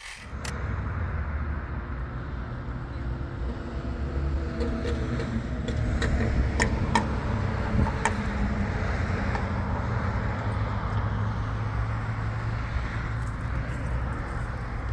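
Motor vehicle running: a steady low engine and road rumble, with a few faint clicks and rattles.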